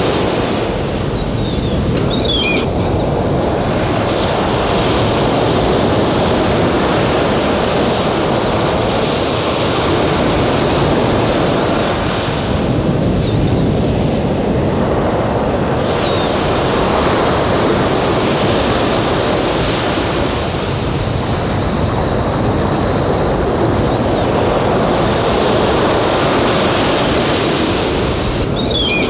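Recorded sea surf: waves washing in and drawing back in slow swells every several seconds. A few short high chirps come about two seconds in and near the end.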